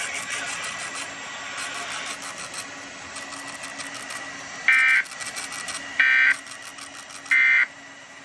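Three short bursts of Emergency Alert System digital data tones (SAME), each about a third of a second long and starting about 1.3 seconds apart, over a steady background hiss. Three short bursts like this are the End of Message code that closes an EAS alert or test.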